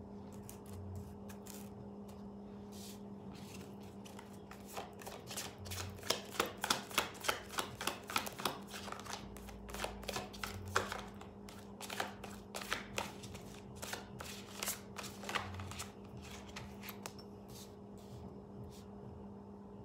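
A deck of tarot cards being shuffled by hand: a run of quick flicks and taps that starts about four seconds in, is thickest from about six to nine seconds in, and thins out a few seconds before the end.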